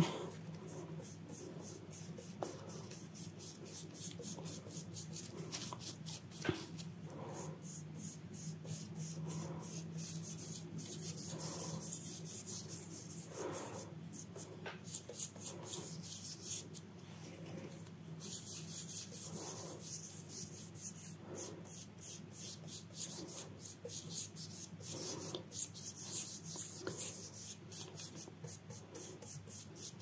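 Dry paintbrush rubbing back and forth over paper in quick, repeated strokes, blending the edges of freshly painted gouache so the colour fades softly.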